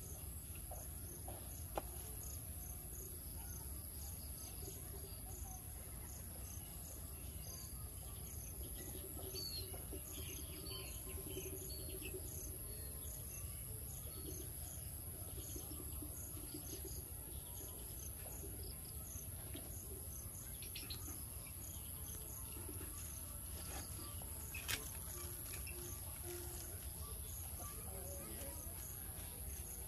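Insects chirping outdoors: a steady high buzz with an evenly repeating pulsed chirp, and a few short bird chirps about a third of the way in. A low rumble runs underneath, and two sharp clicks stand out, one near the start and one late on.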